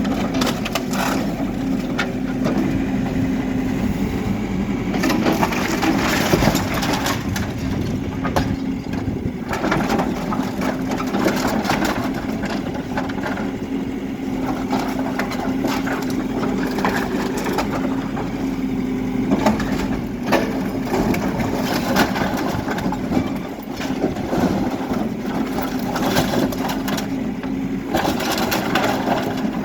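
HIDROMEK K4 Alpha backhoe loader's diesel engine running steadily while its bucket breaks up a building, with repeated cracking and crunching of rubble and timber.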